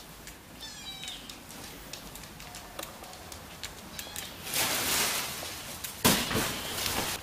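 A Siamese cat gives a short, rising-and-falling meow about a second in. Later comes a second or so of rushing noise, then a sharp knock about six seconds in.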